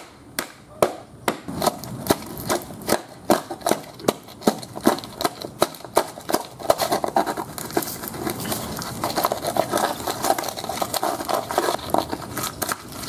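Irregular sharp knocks and clicks of a tool striking and prying at an iPad's aluminium case and broken screen, several a second, giving way to denser crunching and crackling of its broken internals being pulled apart in the second half.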